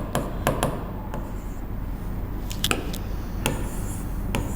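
Writing sounds, scattered taps and short scratches of a pen or chalk on a writing surface, over a steady low electrical hum.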